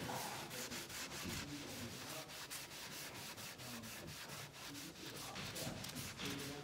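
Stain being wiped by hand across a sanded wood panel: faint, quick, irregular rubbing strokes.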